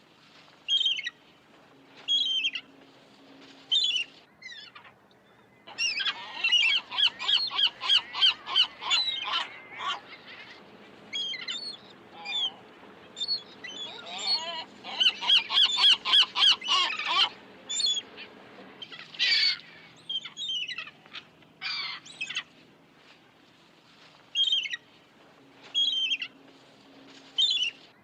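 Gulls calling: sharp single squawks every second or two, broken by two bouts of fast, repeated laughing calls that overlap, one about six seconds in and one from about fourteen to seventeen seconds.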